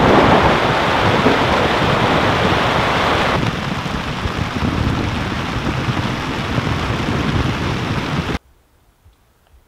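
Heavy storm rain falling on a tent's fly, heard from inside the tent: a loud, dense rush that eases slightly about three seconds in and stops abruptly near the end.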